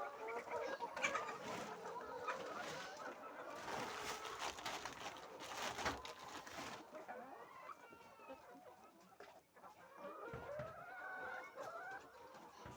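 Laying hens clucking and calling, with a few sharp knocks and clatters in the first half.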